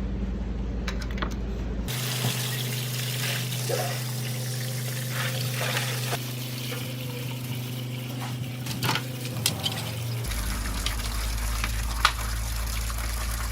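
Running water, as from a tap, over a steady low hum, with scattered clicks and knocks. The sound changes abruptly twice, about two seconds in and again about ten seconds in.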